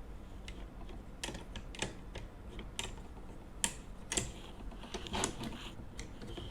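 Small metal parts of an M2 carbine clicking and tapping together as they are handled and lined up during reassembly. The clicks come at an irregular pace, the sharpest a little after halfway through.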